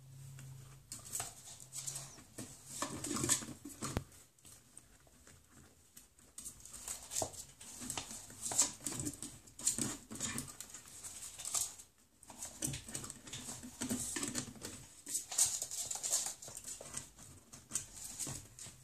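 A ferret scrabbling at a partly open drawer and tugging at a cloth caught in it: irregular scratching and rustling in uneven bursts, with an occasional sharp knock.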